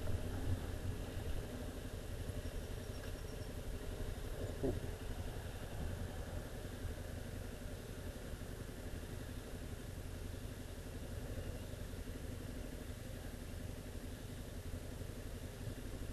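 Motorcycle engine running steadily, a little louder in the first second as the bike comes to a stop, then idling with a low, even hum.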